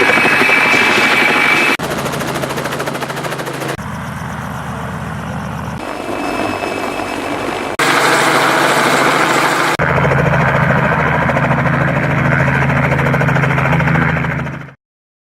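Helicopter engine and rotor running, heard in a string of short clips that change suddenly every two seconds or so. The sound cuts off to silence near the end.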